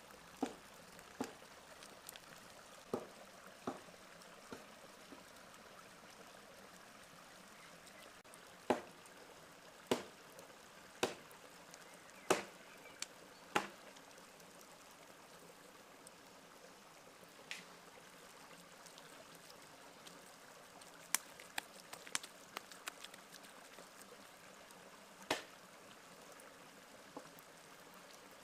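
Hands working a sticky walnut and herb filling into raw lamb and rolling the meat. The sound is scattered sharp wet clicks and slaps, about a dozen, loudest around the middle, over a steady faint hiss.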